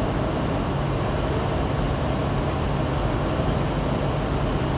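Steady drone of a semi truck's engine and road noise heard inside the cab while driving.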